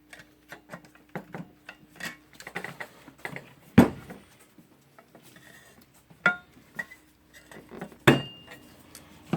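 Pliers gripping and working a metal part out of an angle grinder's housing: a run of small metallic clicks and scrapes, two sharp knocks about four seconds apart, and a brief metallic ring between them.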